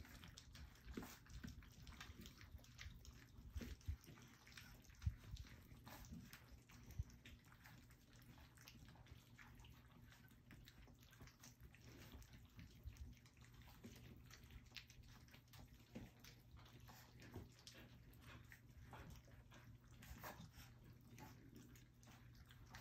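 Faint wet smacking and clicking of a litter of almost four-week-old puppies lapping food from a stainless steel feeding pan at their first meal. A few louder knocks come in the first seven seconds.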